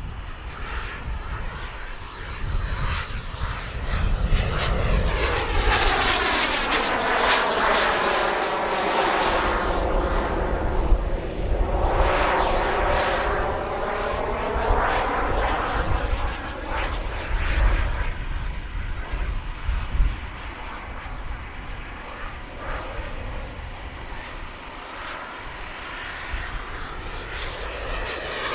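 Twin turbine engines of a radio-controlled Skymaster A-10 Warthog scale jet as it flies past overhead. The jet whine and rush swell about four seconds in, sweep down and back up in pitch as the model passes, then fade and build again near the end.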